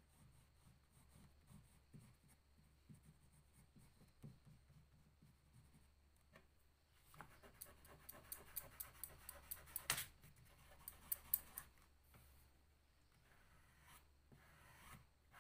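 Faint crayon strokes on paper, then fingertips rubbing and blending the crayon on the paper, a scratchy rubbing with sharp ticks from about halfway to near the end.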